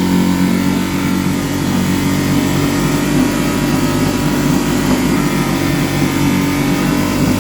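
Mariner 3.5 hp single-cylinder two-stroke outboard running steadily with the choke off, its carburettor freshly cleaned; it runs smoothly, the best it has ever run.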